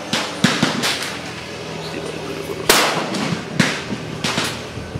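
Gunshots from other shooters at an outdoor range: about six sharp reports at uneven intervals, each followed by a short echo, the loudest a little past halfway.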